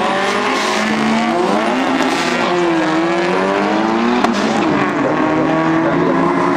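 Two tuned old Volvo cars, one of them an Amazon, launching off a drag-strip start line and accelerating hard, their engines revving up with the pitch climbing and dropping back at gear changes.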